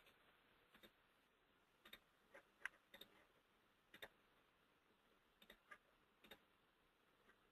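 Faint computer mouse clicks, about ten short, sharp ticks scattered over several seconds, against near silence.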